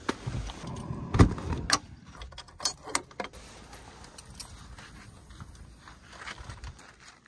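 Pop-top roof of an aluminium pickup camper canopy being pushed open by hand: metal fittings clinking and rattling, with a series of sharp knocks, the loudest about a second in.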